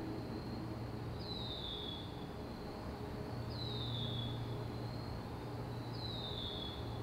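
Woodland ambience: a bird gives a short, high whistle that slides downward, three times about two and a half seconds apart, over a faint steady high insect-like drone and a low hum.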